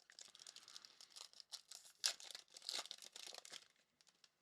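Trading card pack wrapper being torn open and crinkled: a quiet run of crackly rustles with small sharp ticks, loudest about two seconds in, dying away near the end.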